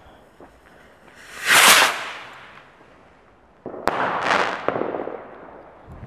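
Small Sky Rocket firework launching with a whoosh that swells and fades about a second and a half in. About four seconds in it bursts in the air with a sharp crack, followed by a hiss that fades over a second or two.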